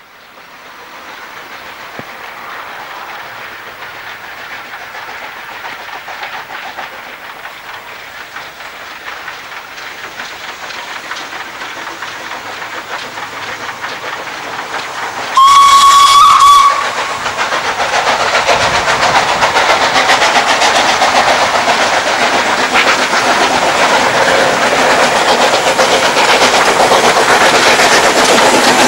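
Nord 4-6-0 and Hunslet 0-6-0ST saddle-tank steam locomotives double-heading a train, their working steam and running noise growing steadily louder as they approach. About halfway through, one steady steam whistle blast of just over a second is the loudest sound.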